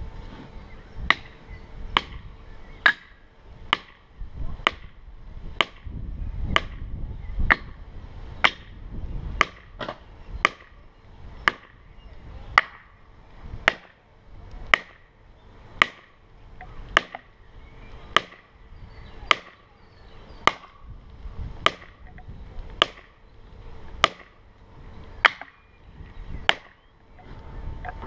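Axe blows striking wood in a steady rhythm, about one sharp blow a second, kept up throughout.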